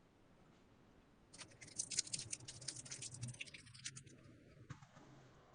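A quick, faint run of light clicks and scratchy taps. It starts about a second in and lasts about three and a half seconds.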